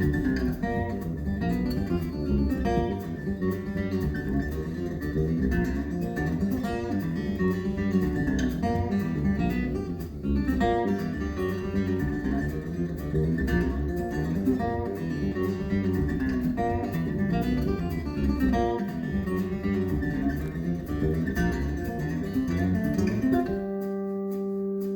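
Recorded acoustic guitar music, quickly plucked notes over bass, played through Magnepan LRS planar-magnetic speakers in a room. Near the end the playing gives way to one sustained held chord.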